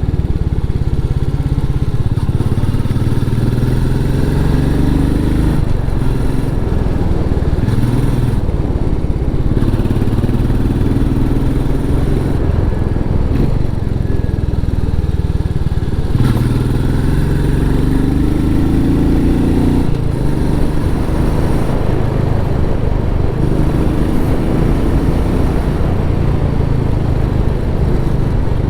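Royal Enfield Meteor 350's single-cylinder engine on its stock exhaust, ridden under way. The pitch climbs for a few seconds and then drops at each gear change, several times over.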